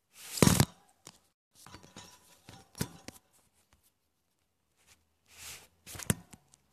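Handling noise close to a phone's microphone as the phone is shifted: short bursts of rustling with sharp knocks, the loudest near the start, more around two to three seconds in and again near the end.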